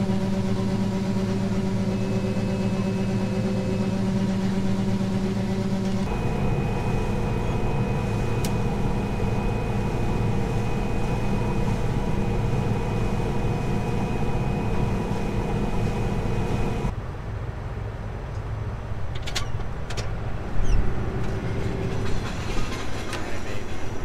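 Combine harvester running steadily, heard from inside the cab, at first while unloading soybeans and then while cutting soybeans. The hum changes abruptly about six seconds in and drops off about seventeen seconds in, after which a few clicks and knocks are heard.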